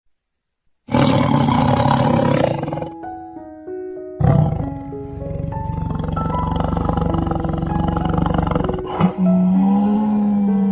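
An animal roar about a second in, lasting a second and a half, followed by background music: a melody of held notes.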